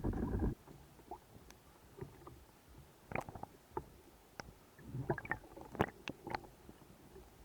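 Underwater recording from a spearfishing dive: a low rumble that cuts off abruptly about half a second in, then quiet water with scattered sharp clicks and short crackles.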